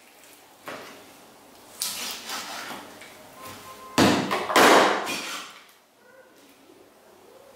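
A kitchen knife cutting through a raw coot carcass on a wooden cutting board, splitting the bird in half: a few sudden knocks and cutting noises against the board. The loudest lasts about a second, starting about four seconds in.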